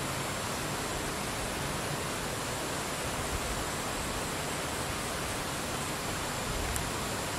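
Steady, even hiss of outdoor background noise in a tree canopy, with a faint thin high tone held throughout.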